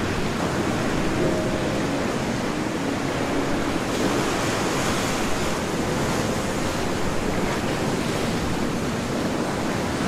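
Ocean surf breaking and washing against a rocky shore, a steady rush of water with no single wave standing out.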